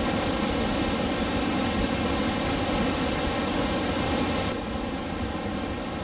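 Steady rush of heavy water from a large waterfall: a loud, even noise with no breaks.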